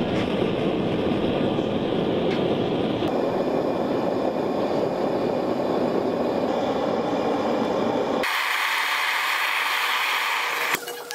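Gas forge burner running with a loud, steady roar while a drill bit heats inside. About eight seconds in, the sound switches abruptly to a higher hiss. Near the end it drops to a quieter stretch with a few light clicks of tongs in a steel ash tray.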